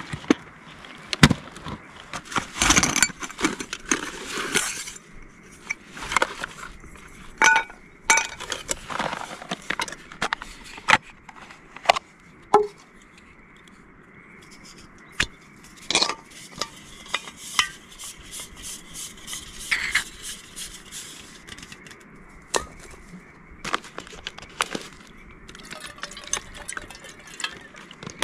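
Irregular sharp clicks and knocks, scattered through with soft rustling, like objects being handled and set down.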